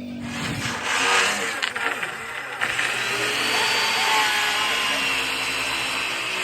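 A power tool working on wood during deck building: a steady, harsh noise that starts just after the beginning and shifts in character about two and a half seconds in.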